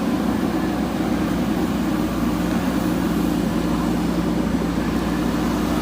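Diesel engine of a JCB 3DX Super backhoe loader running steadily at an even pitch and level.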